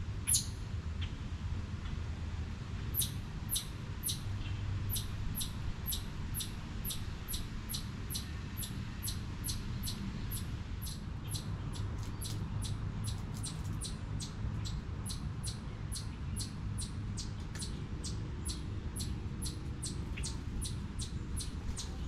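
Eastern chipmunk chipping: a long, even run of short, sharp, high chip calls, about two to three a second, beginning a few seconds in. A single sharp click comes just after the start, and a low steady rumble lies underneath throughout.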